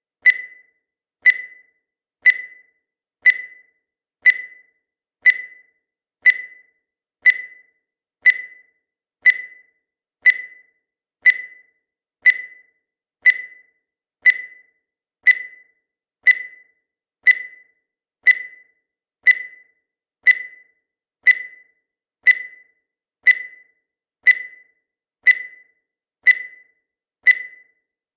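Countdown timer sound effect: a short, high-pitched tick once a second, each dying away quickly.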